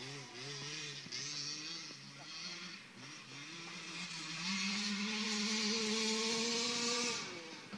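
Small two-stroke engine of a radio-controlled car, revving up and down in short swells. About halfway through it climbs to a high, steady rev and holds there for a couple of seconds, then drops off near the end.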